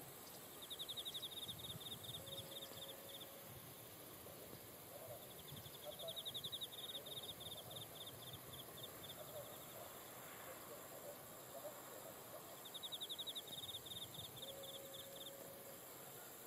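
Insect song: three long bursts of rapid, evenly pulsed chirping, each about two and a half seconds, over a steady high-pitched insect whine and faint background noise.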